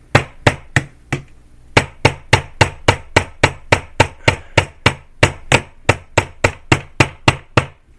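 Hammer tapping a small nail used as a punch to drive out the trigger guard pin of an M4 airsoft rifle. The sharp taps come in a steady run of about three to four a second, with a short pause about a second and a half in.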